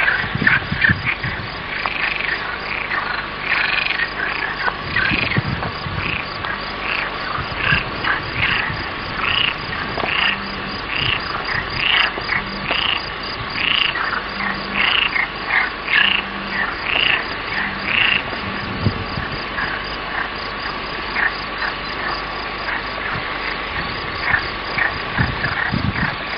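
Frogs croaking in a run of short repeated calls, about one or two a second, loudest through the middle and fainter towards the end.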